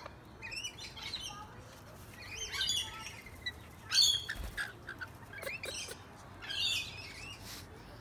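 Rainbow lorikeets squabbling: about five bursts of shrill screeching chatter, the loudest about four seconds in, with a flutter of wings.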